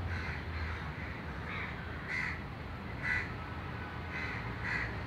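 Crows cawing, about seven short harsh caws at uneven intervals, over a steady low background rumble.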